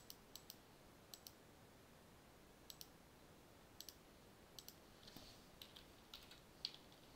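Scattered sharp clicks of a computer mouse and keyboard, many in quick pairs, over faint steady room hiss.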